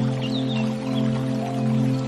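Background music: a slow, steady drone that swells and fades in a gentle pulse, with short high chirps over it.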